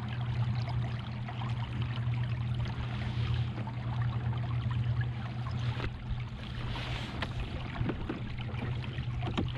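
Electric kayak trolling motor running with a steady low hum, with water rushing and lapping along the hull.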